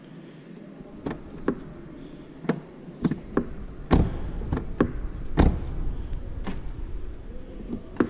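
Audi A4 B8 rear door lock and handle being worked with the key fob while testing the reassembled lock: a string of sharp clicks and clunks from the lock and handle. The loudest clunks come about four and five and a half seconds in.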